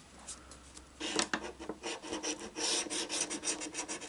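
Scratch-off lottery ticket having its latex coating scraped away: quick, repeated scraping strokes that begin about a second in.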